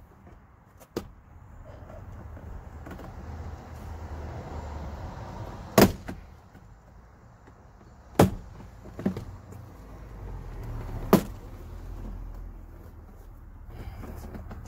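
Plastic retaining clips of a Ford Escape front door trim panel popping loose as the panel is pried off: a few sharp snaps, the loudest about six, eight and eleven seconds in, with smaller clicks between.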